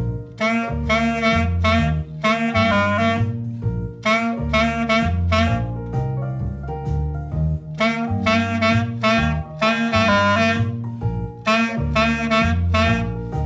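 Jazzy instrumental music: a woodwind lead plays phrases of quick short notes over a moving bass line and a held chord, with short gaps between phrases.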